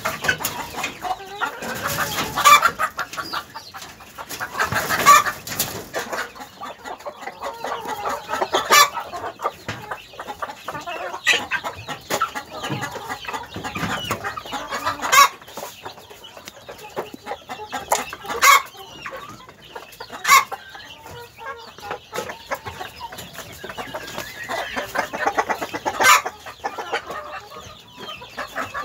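A flock of chickens, hens and a rooster, clucking and calling continuously, with short, sharp loud calls standing out every few seconds.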